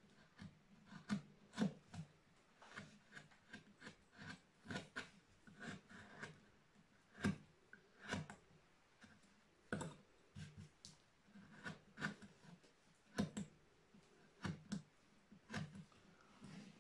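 Hand carving chisel cutting into a wooden relief panel: short, crisp, irregular cuts and clicks, about two a second.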